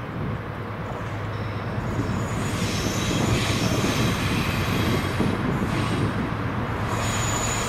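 Two Freightliner Class 70 diesel locomotives hauling a container train, their engines humming steadily over the rumble of wheels on rail, getting louder as they approach. A high-pitched wheel squeal comes in during the second half.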